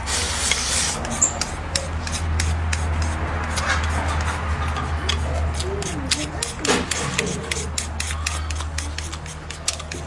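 Close-miked eating: chewing and mouth sounds with many small crisp clicks and rubbing noises, over a steady low hum.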